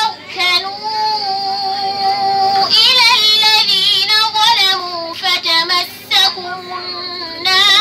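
A girl reciting the Quran in melodic tajweed chant. She draws out long held notes and ornaments the turns between them, with short breaths between phrases.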